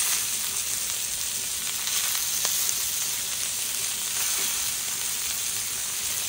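Jumbo shrimp sizzling steadily in oil on a hot Blackstone griddle flattop, with a few faint clicks as they are turned over.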